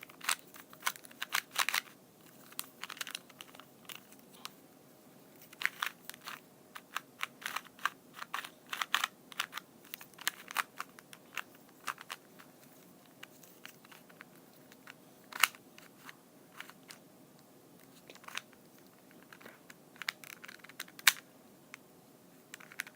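A 2x2 Rubik's cube being turned by hand: irregular runs of short plastic clicks as its layers are twisted, with two sharper clacks, one past the middle and one near the end.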